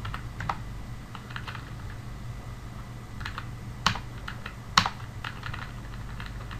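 Single keystrokes on a computer keyboard at an irregular pace, mostly the Enter key being pressed to put blank lines between the parts of a letter. Two strokes, about four seconds in and just under five seconds in, are much louder than the rest.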